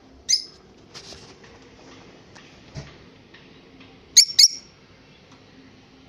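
Peach-faced lovebird giving short, high-pitched chirps: one about a third of a second in, then a quick, louder pair a little past four seconds.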